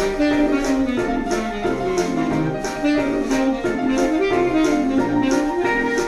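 Background music: jazzy instrumental with saxophone-like lead and piano over a steady beat.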